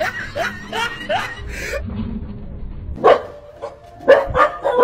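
Stray dogs barking at a tiger figure: a run of short calls falling in pitch in the first second and a half, then loud single barks about three seconds in and again near the end.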